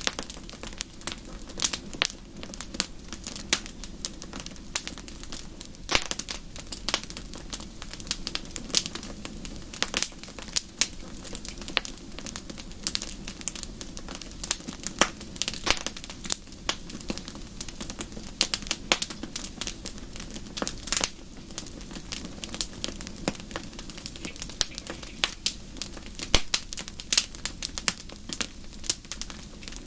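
Wood fire in a fireplace crackling, with frequent sharp irregular pops and snaps over a low steady rumble of the burning.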